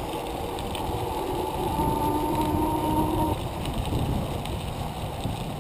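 Wind rushing over the microphone with tyre rumble from riding along a paved trail. A steady tone rises above it for about a second and a half midway.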